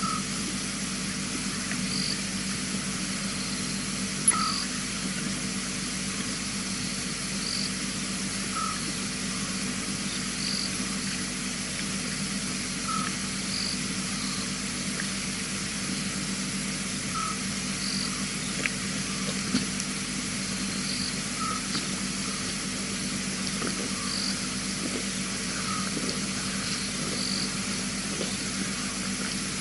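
Night ambience of frogs calling: two kinds of short call, one lower and one higher, each repeating every three to four seconds over a steady hiss of insects. A low steady hum lies underneath, and a single sharp click comes about four seconds in.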